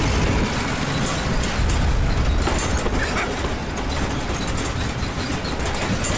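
Road roller engine running with a loud, steady low rumble and rattling clatter.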